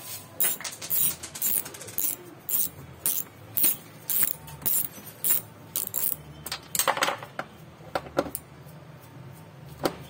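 Ratchet wrench clicking in quick strokes, about two to three a second, as it backs out bolts on a washing machine's metal transmission mounting plate. There is a louder run of clicks about seven seconds in, and the clicks thin out toward the end.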